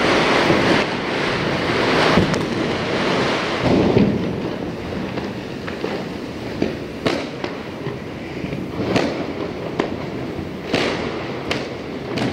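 Firecrackers going off: a dense crackling din for about the first four seconds, then separate sharp bangs every second or two.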